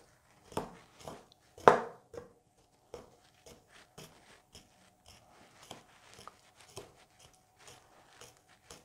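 A small knife being stabbed repeatedly into a large raw beef loin to make deep holes for marinade: scattered soft taps and clicks, the loudest two about half a second and nearly two seconds in.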